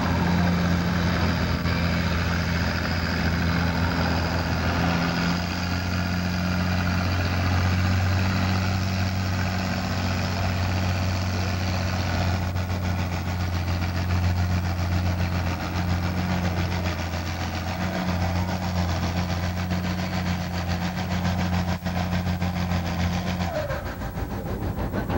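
International Harvester farm tractor's engine pulling a weight-transfer sled under heavy load, running at a steady high note, then dropping off suddenly near the end as the pull stops.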